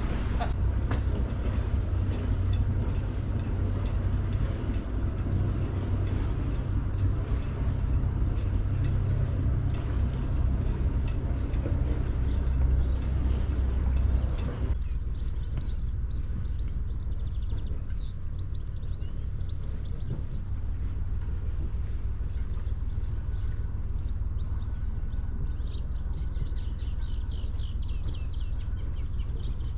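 A sailing yacht's inboard engine running steadily while motoring, a strong low hum with rushing noise over it. About halfway through it cuts abruptly to a quieter low hum with small birds chirping.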